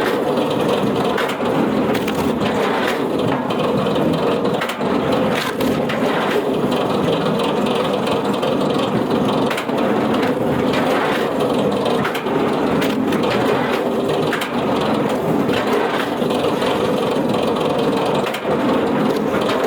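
A wood-processing machine running steadily under load, crushing and splintering wood with frequent sharp cracks.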